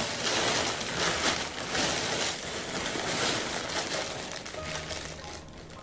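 Plastic bags crinkling and rustling as a plastic-wrapped parcel is pulled from a black plastic bag and handled. The noise thins out near the end.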